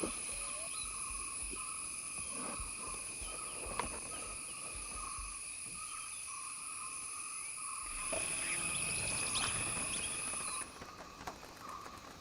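Insect chorus: several steady high-pitched trills layered together, with a pulsing lower trill beneath. The two highest trills cut off suddenly near the end.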